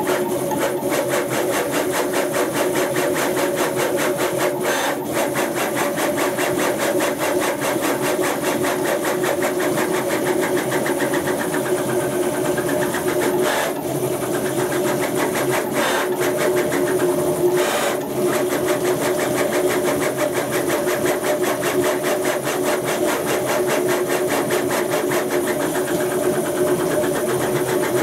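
Stepper motors of a CNC router, run by a G540 driver, whining and buzzing steadily as the machine moves through a 3D print. The pitch swells and falls slowly as the moves change speed, and there are a few short clicks.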